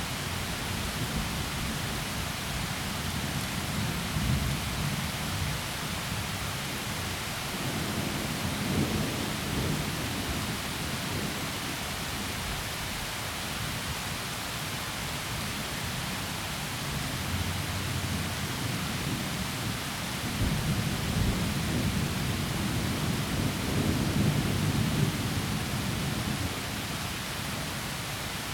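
Heavy rain falling steadily in a forest, with rolling thunder rumbling low twice: once in the first third and again in the last third.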